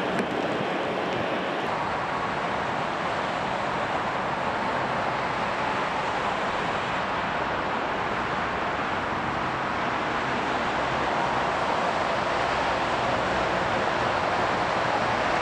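Distant jet engine noise from an Airbus A321 on the runway: a steady rushing roar that grows louder over the last few seconds.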